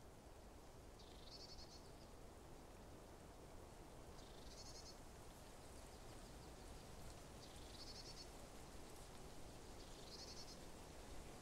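Near-silent outdoor ambience with a faint, high, buzzy bird call repeated four times, about three seconds apart.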